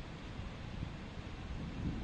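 Wind buffeting the microphone in gusts: a low, uneven rumbling noise.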